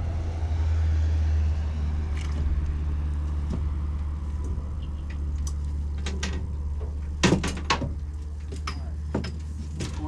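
Steady low drone of the boat's motor running, with a few sharp knocks about seven seconds in.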